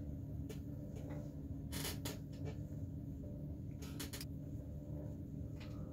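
A wig being pulled on over a mesh wig cap and adjusted by hand: a handful of short, soft rustles, two of them close together about two seconds in and again about four seconds in, over a steady low room hum.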